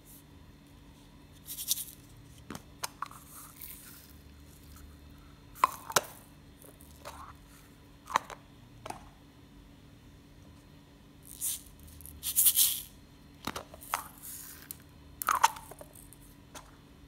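Plastic toy eggs clicking open and glitter shaken out of them onto a bowl of slime: scattered sharp plastic clicks and a few short, hissy rustles of the glitter falling.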